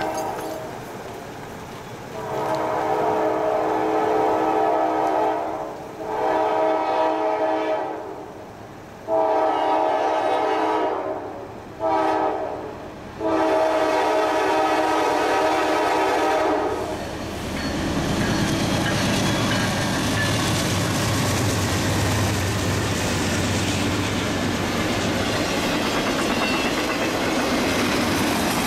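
Norfolk Southern diesel locomotive's multi-chime air horn sounding for a grade crossing in long, long, short, long blasts. From about 17 s in, the locomotive and its intermodal train rumble past with wheels clicking over the rail joints.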